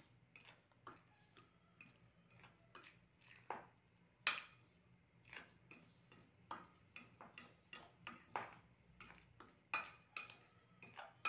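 Metal utensil clinking and scraping against a ceramic bowl while stirring small silverfish into beaten egg for an omelet: irregular clinks about two or three a second, one louder clink about four seconds in.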